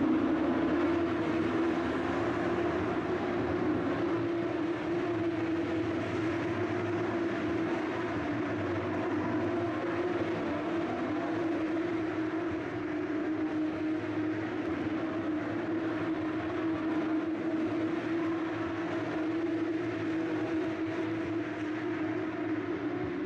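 A steady mechanical hum, level and unchanging in pitch, from a running machine or vehicle that stays in place rather than passing by.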